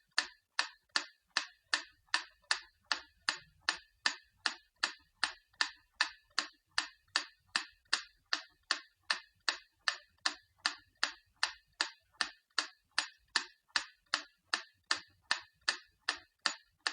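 Antique clock ticking fast and evenly, about two and a half sharp ticks a second.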